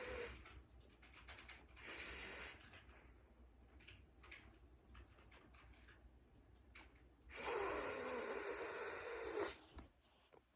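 Close, breathy nasal sniffs: a person smelling a dog's paw. There is a short sniff at the start, another about two seconds in, and a long drawn-in sniff lasting about two seconds near the end, with a few faint clicks between.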